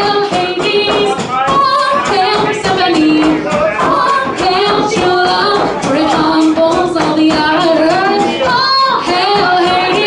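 A woman singing a song solo in a strong, full voice, holding long notes with wavering pitch.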